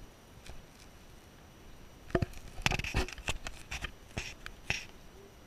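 Handling noise on the camera: a quick run of sharp clicks and knocks starting about two seconds in and lasting a couple of seconds.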